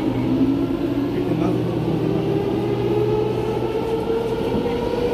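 SMRT C751B metro train pulling away from the platform, heard inside the carriage: the traction motors give a whine that rises slowly in pitch as the train gathers speed, over the steady rumble of the car.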